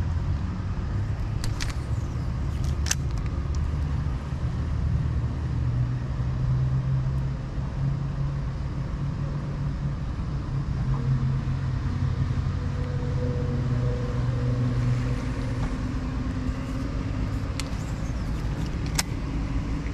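Steady low rumble of road traffic, with a vehicle passing about halfway through. A few sharp clicks sound near the start and near the end.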